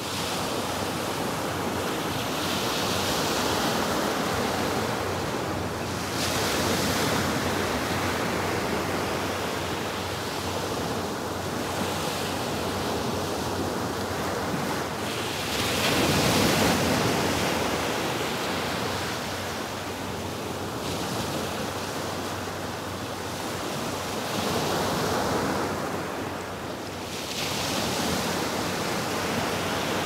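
Small ocean waves breaking and washing up the beach, a steady rush that surges every four to five seconds as each wave comes in.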